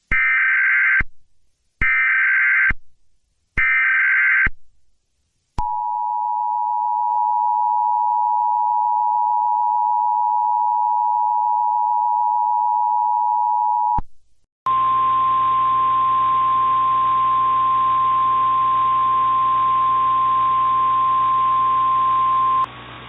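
Emergency Alert System tones: three short bursts of SAME header data about a second apart, then the two-tone attention signal held for about eight seconds. After it comes a single steady NOAA Weather Radio-style alert tone for about eight seconds over hiss and hum, announcing a tornado warning.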